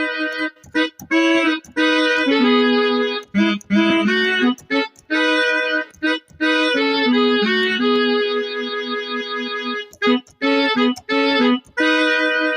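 Sampled Yamaha Motif keyboard patch in SF2 soundfont form playing held chords and short runs of notes with a bright, reedy tone. Phrases stop abruptly several times with brief gaps between them.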